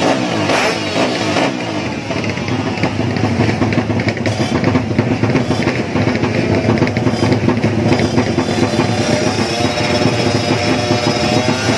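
Drag-race motorcycle engines running at the start line and revved now and then, with shifting rev pitch in the last few seconds, mixed with drum-heavy music.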